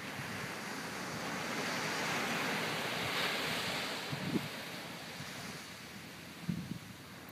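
Small ocean waves breaking and washing up the sand, swelling to a peak about three seconds in and then receding, with wind on the microphone and a couple of brief low thumps in the second half.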